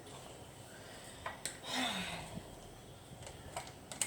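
A few sharp light clicks and knocks from handling a plug and socket, with a short breathy vocal sound about two seconds in.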